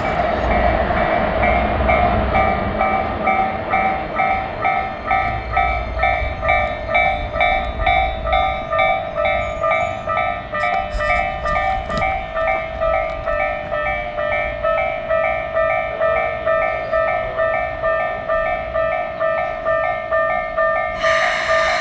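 Japanese railroad crossing warning bell ringing in a steady, fast repeating "kan-kan" over the low rumble of a passing train. The rumble fades out about two-thirds of the way through while the bell keeps ringing, and a short rushing noise comes in near the end.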